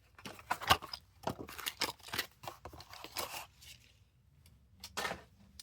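A plastic blister pack being opened by hand: irregular crackling, scraping and tearing of the plastic and card for about three and a half seconds, then a pause and a couple of last crackles near the end.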